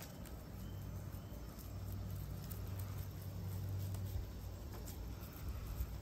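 Quiet handling sounds of raw ground beef being pressed and shaped into a patty by hand, over a low steady hum.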